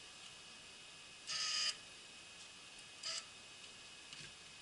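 Electric linear actuator that tensions a belt grinder's tracking arm, whirring in short bursts as it is jogged by remote to adjust belt tension: one burst of about half a second just over a second in and a brief blip around three seconds in, with a few faint clicks between.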